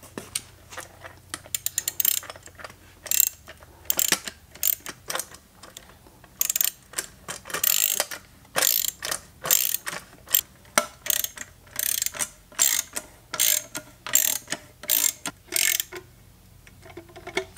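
Socket ratchet wrench clicking in quick repeated strokes as a bolt is turned, with a short pause near the end.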